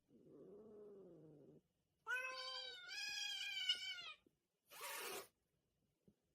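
Domestic cat meowing: a faint low call, then two clear meows about two seconds in, the second longer and wavering. A brief burst of noise follows near the end.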